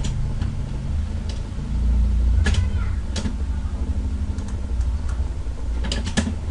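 Low steady hum and rumble that swells slightly about two seconds in, with a handful of short sharp clicks from a computer mouse, several of them close together near the end.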